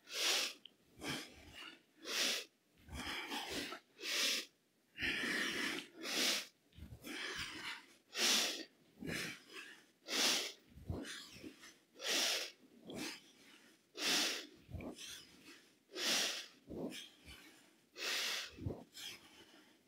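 A woman's heavy, rhythmic breathing, in and out about once a second, while she works through repeated squats with a knee raised to the chest: she is breathing hard from the exertion.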